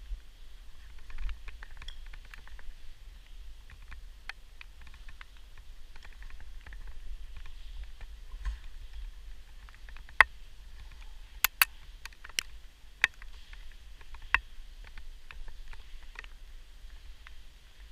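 Irregular small clicks and ticks of a caver's rope gear, with a handful of sharp, louder clicks between about ten and fifteen seconds in, over a low rumble of handling noise.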